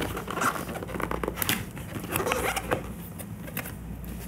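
White cardboard box being opened by hand: the lid lifted and the flaps folded back, with card scraping and rustling and a few sharp taps.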